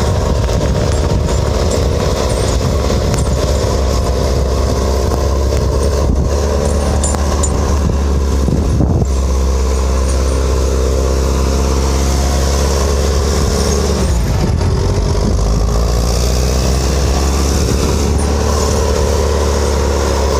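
Engine of heavy logging equipment running steadily with a deep hum, dipping briefly about two-thirds of the way through.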